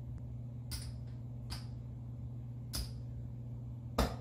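Casino chips clicking together as they are picked up and stacked on a craps table: four separate short clicks, the last and loudest near the end, over a steady low hum.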